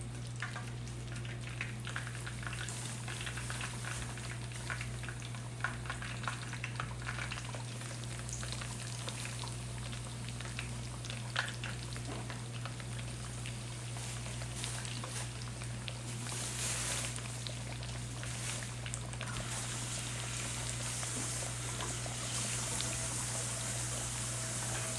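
Breaded chicken pieces frying in hot oil: a steady sizzle with scattered small crackles and pops. The hiss grows louder in the last few seconds.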